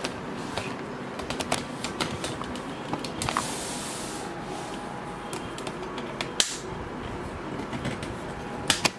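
Cardboard box and its packing being handled as a hot air rework station is lifted out: scattered knocks and clicks, with a scraping rustle of about a second a little past three seconds in and a sharper knock about six seconds in.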